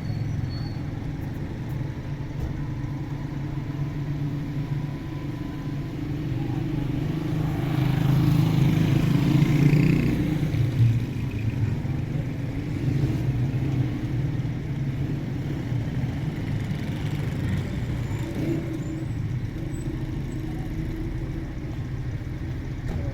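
A car driving, with a steady low engine and road rumble that swells for a few seconds around the middle.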